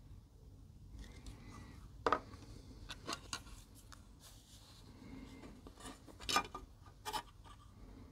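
Faint handling noise of small resin and plastic model parts being picked up and fitted by hand: a handful of sharp little clicks and taps, the loudest about two seconds in and again past the middle.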